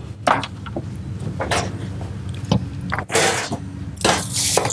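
Several short scraping and rustling sounds as a cut lime is worked over whole tilapia in a glass baking dish to clean the fish. The longest and loudest of them comes near the end.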